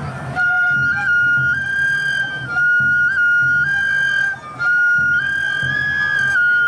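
Shinobue bamboo flute playing a high Awa Odori melody in held notes that step up and down, over a low rhythmic beat from the accompanying band.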